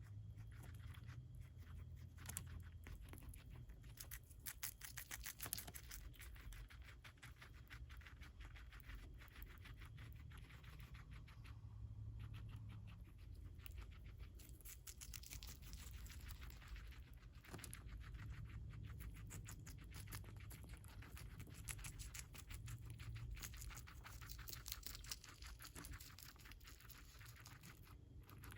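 Guinea pig chewing lettuce: a quiet, continuous run of rapid crisp crunching clicks.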